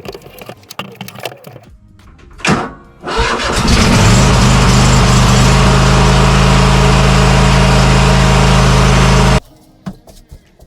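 A motor starts up, rising quickly to a loud, steady run with a low hum, and cuts off abruptly about nine seconds in.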